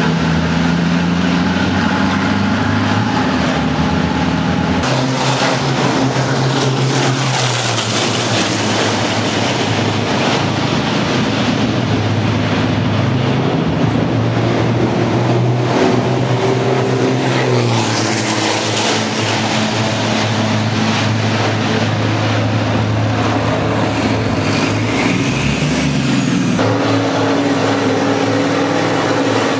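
Racing trucks' big turbodiesel engines running and revving close by, in several clips joined together. The engine note changes abruptly a few times and drops in pitch now and then as a truck pulls away or eases off.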